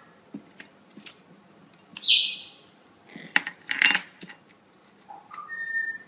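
Amazon parrot sounds: a short harsh screech about two seconds in, a quick cluster of sharp clicks and taps, then a whistle that steps up in pitch and holds one clear note near the end.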